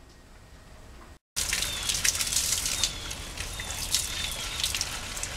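After about a second of quiet room tone, gasoline pours in a stream from a Yamaha FZR's metal fuel tank into a plastic funnel on a gas can, splashing and trickling. Birds chirp briefly in the background.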